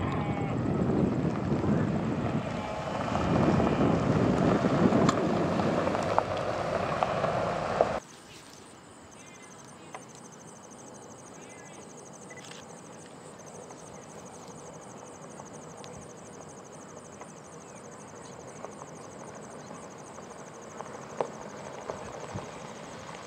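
Several cars driving past on a gravel road, a loud rumble of tyres and engines that cuts off suddenly about eight seconds in. After that, quieter outdoor background with a steady high buzz, and near the end faint crunching of a pickup truck's tyres on gravel as it approaches.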